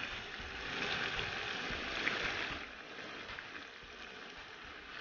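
Noodle-wrapped prawns deep-frying in hot oil in a wok: a steady sizzle that drops off somewhat after about two and a half seconds.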